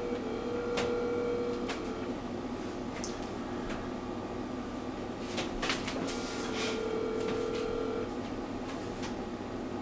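Telephone ringback tone from an outgoing call that has not been answered, heard through the phone's speaker: two rings of about two seconds each, roughly four seconds apart, with a few faint clicks between.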